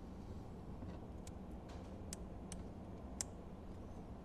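Faint, scattered light clicks of a plastic fuse puller gripping and drawing a blade fuse out of a car's fuse panel, the sharpest tick a little after three seconds in.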